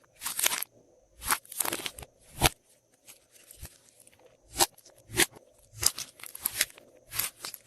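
Glossy slime being squeezed and mixed by hand, giving irregular sharp clicks and short crackling, crunchy pops.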